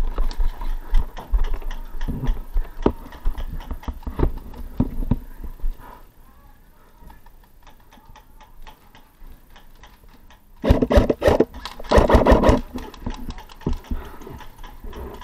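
Footsteps on gravelly dirt, then about ten seconds in an airsoft rifle fires two short full-auto bursts of rapid clicking shots, each under a second long.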